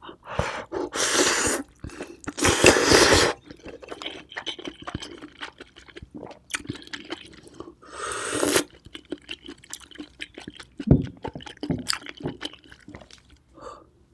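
Loud wet slurping of an oyster and its juice straight from the half shell: two long sucks in the first few seconds and a third near the middle, with wet chewing clicks in between and after.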